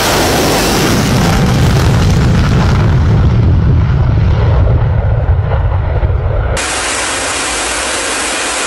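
Twin turbofan engines of a MiG-31 Foxhound running loud on its take-off run, a deep rumble with rushing noise over it. About six and a half seconds in, the sound cuts suddenly to a steady hiss with no rumble.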